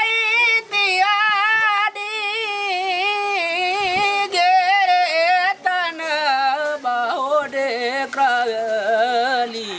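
A man singing a traditional welcome song solo, unaccompanied. He holds long notes with a wavering, ornamented pitch, with short breaks for breath, and the melody gradually falls lower toward the end.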